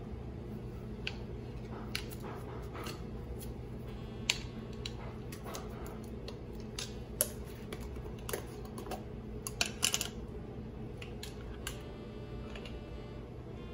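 Scattered small clicks and taps as a jar of bouillon paste, its lid and a spoon are handled and the jar is opened, over a steady low hum.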